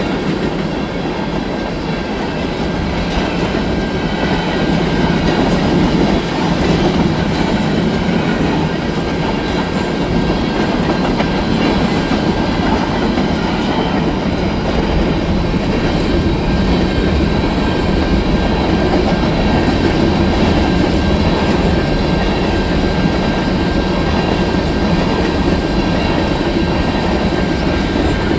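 Mixed freight cars of a CN freight train (flatcars, boxcars, tank cars, autoracks) rolling steadily past a level crossing: continuous wheel-on-rail noise with rattling cars.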